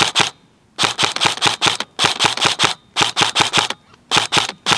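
Airsoft rifle firing on full auto in about four short bursts of rapid sharp cracks, with brief pauses between them.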